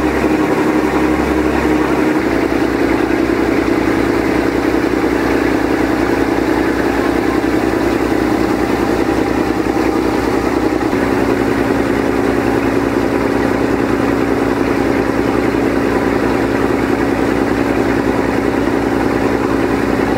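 Motorboat engine running steadily under way, over a constant rush of churning water and wind. The engine note shifts slightly about two seconds in.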